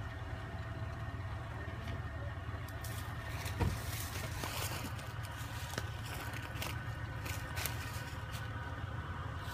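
4x4 SUV engine running low and steady as the vehicle crawls slowly through a mud hole, with scattered crackling and scraping from the tyres, mud and brush, and one knock about three and a half seconds in.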